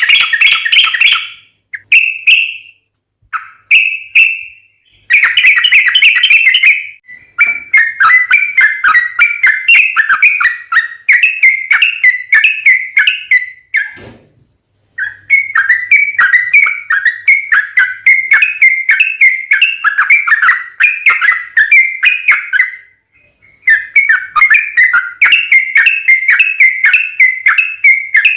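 Yellow-vented bulbul (trucukan) song: rapid, chattering runs of whistled notes. A few short phrases open it, then long runs follow, with a brief pause about halfway and another near the end.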